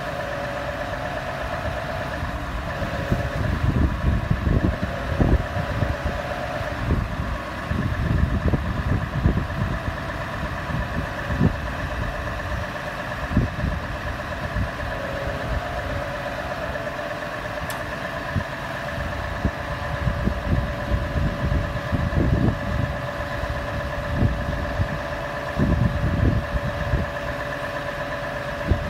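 Scania lorry's diesel engine running steadily to drive its Fassi loader crane's hydraulics as the crane lifts a shipping container, with a constant whine from the hydraulic pump and irregular low rumbles over it.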